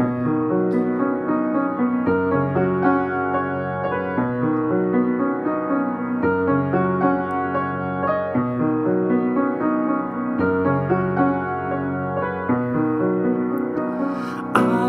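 An upright piano played solo in a slow instrumental passage, with the low bass notes changing about every two seconds under chords and melody. The playing grows louder just before the end.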